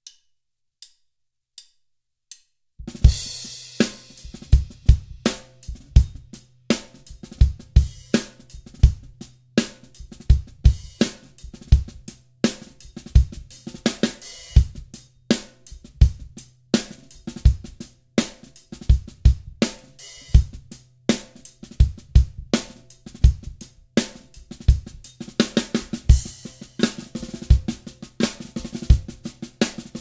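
Four light clicks count in, then a full drum-kit groove starts about three seconds in: a Dunnett 14x6 snare drum, its head tuned two full turns past finger tight, played with bass drum, hi-hat and cymbals.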